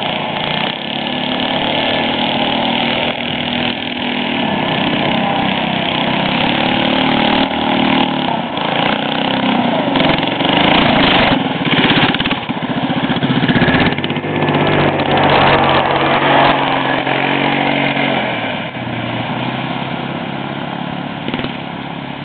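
Minibike's small single-cylinder engine revving up and down as the bike rides past on an icy road. It grows loud about halfway through as the bike passes close, then fades as it rides away.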